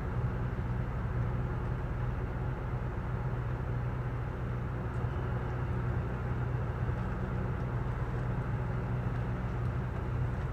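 Steady low engine drone with a constant hum, heard from inside a truck's cab.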